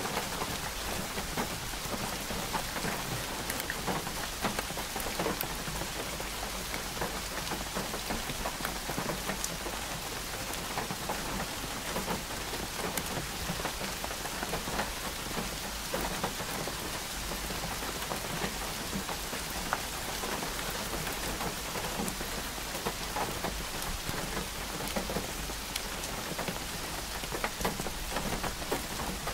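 Steady rain falling, with many separate drops ticking close by against an even hiss.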